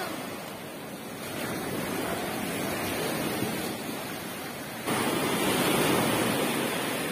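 Waves breaking and washing up onto the shore, a steady rushing that grows louder about five seconds in.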